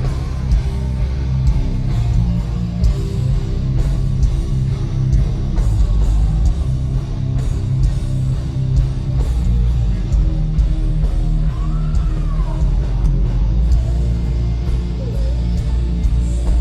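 Live heavy rock band playing at full volume: distorted electric guitars, bass and drums.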